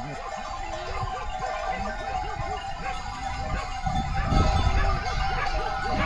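A mixed herd of goats and sheep on the move, many animals bleating over one another, with a low rumble coming in about four seconds in.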